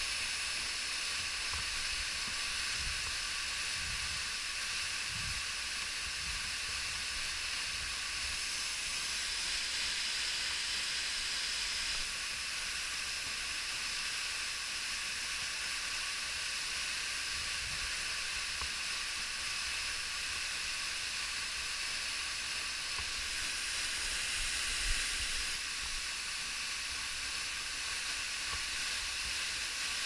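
Waterfall falling close by: a steady rushing hiss of water and spray with no letup. One brief knock near the end.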